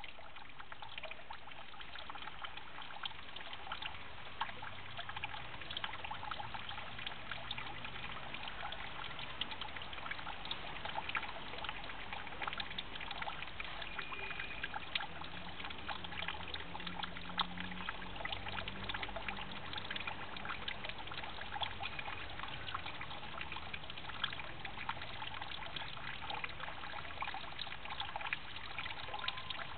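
Steady trickle of water into a pond, with a dense patter of small drips and clicks.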